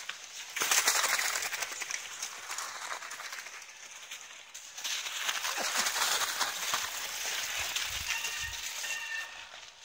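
Mountain bike tyres crunching and crackling over packed snow as riders pass close by, swelling twice as bikes go past.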